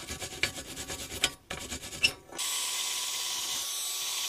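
Wire brush scrubbing paint and rust off a steel motorcycle exhaust header pipe: quick, uneven scrubbing strokes at first, then, after a short pause about two seconds in, a steady even scraping.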